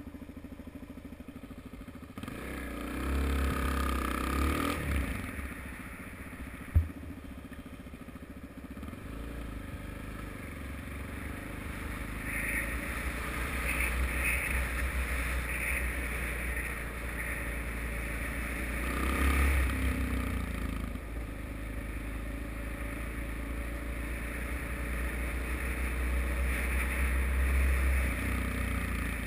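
Suzuki DR-Z single-cylinder four-stroke motorcycle engine running on the move, heard from a helmet-mounted camera with wind on the microphone; it picks up with rising revs about two seconds in and again about two-thirds through. A single sharp click about seven seconds in.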